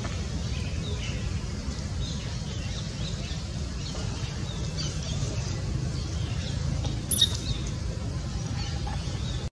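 Faint, scattered high squeaks or chirps from small animals over a steady low rumble, with one brief louder high sound about seven seconds in.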